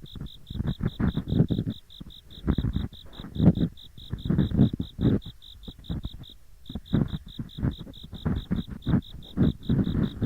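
Ear picks scraping and rubbing in both ear canals of a binaural microphone at once, in irregular bursts of deep, rough 'gori-gori' scratching. Behind it an autumn insect trills steadily, a high pulsed chirp about six times a second that breaks off briefly about six seconds in.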